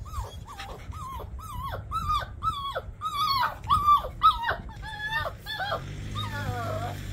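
A puppy trapped down in a water channel, crying over and over: short high yelping whimpers, about three a second, each falling in pitch, turning into a few quavering wails near the end. It is crying because it wants to climb out and can't.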